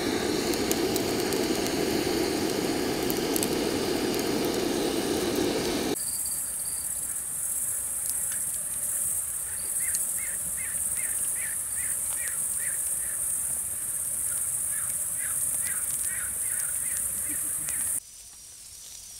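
A handheld gas torch blowing its flame into firewood in a metal brazier, a steady rushing noise. After about six seconds this gives way to a steady chorus of crickets, with a short call chirped over and over through the middle stretch.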